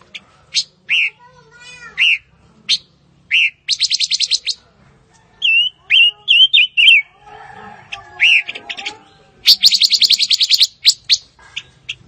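Silver-eared mesia calling: sharp separate chip notes, a run of short whistled notes near the middle, and two fast rattling trills, one about four seconds in and one near ten seconds.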